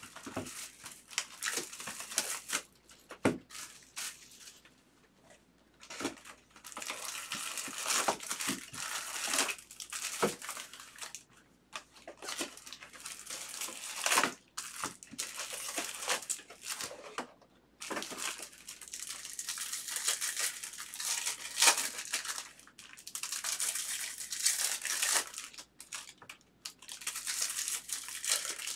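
Foil wrappers of Bowman baseball card packs crinkling and tearing as the packs are handled and ripped open, along with the rustle of the cardboard box. The sound comes in irregular rustling spells with sharp clicks, and a short lull about five seconds in.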